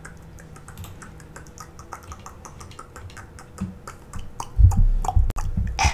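Scattered light clicks and taps, with a few louder low thuds about a second before the end.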